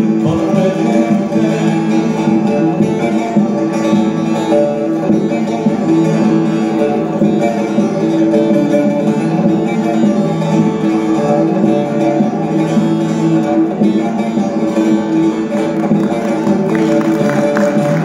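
Bağlama (long-necked Turkish saz) played solo: a continuous, quick run of plucked notes, with no singing.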